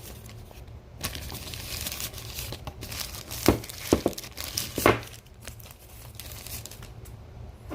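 Packaging crinkling and tearing as a power adapter is unwrapped and pulled out of its box, with a few sharp clicks and snaps around the middle.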